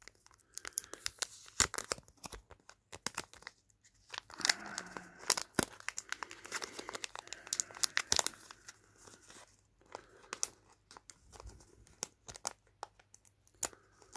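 Packaging being torn open and crinkled by hand: an irregular run of rips, crackles and small clicks, busiest about midway.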